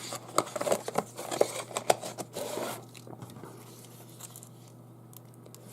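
Hands handling a small plastic night light and its packaging: irregular clicks, taps and rustles for about the first half, then quiet with only a few faint ticks over a low steady hum.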